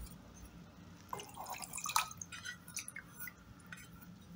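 Soaked tamarind and its water being poured from a steel cup into a steel mixer-grinder jar: faint splashes and drips, with a few small clicks of metal on metal.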